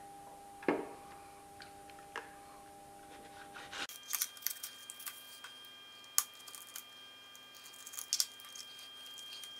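Scattered sharp clicks and light metallic knocks of hands pulling metal Märklin M-track sections apart and handling the 5128 double slip switch, with a screwdriver working at its screws; the clicks come thickest in the second half.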